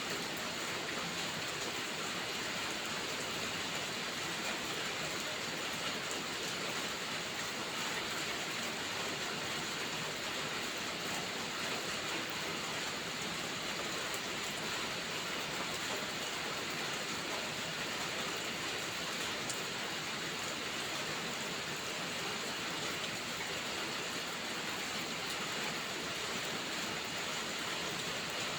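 Steady rainfall, an even, unbroken hiss of rain with no changes.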